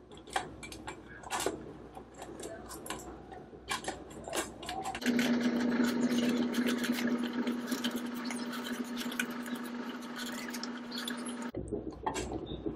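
A large dog crunching dry kibble and nosing it around a stainless steel bowl, giving scattered small clicks and clinks. About five seconds in, a steady machine-like hum starts, louder than the eating, and it stops abruptly about a second before the end while the clicks go on.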